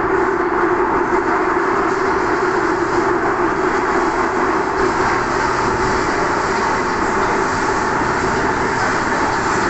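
Kawasaki Nippon Sharyo C751B metro train running at a steady speed, heard from inside the car: a constant rumble of wheels on rail mixed with a steady droning hum, with no change in pitch.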